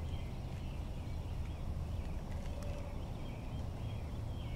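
Outdoor ambience: a steady low rumble of wind on the microphone, with faint, short bird chirps over it.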